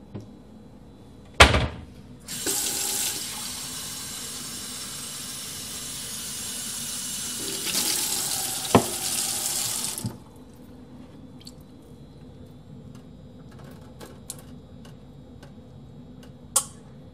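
A sharp knock, then a tap turned on, with water running into a sink for about eight seconds before it is shut off. A click sounds during the run, and a few faint ticks follow.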